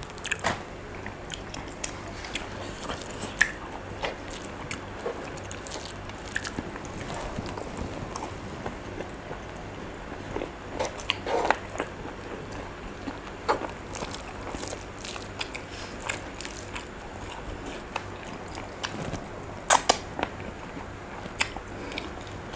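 Close-up chewing and lip-smacking of soft, wet food (rice, beef rendang and raw oyster), with scattered short wet mouth clicks and a few louder smacks.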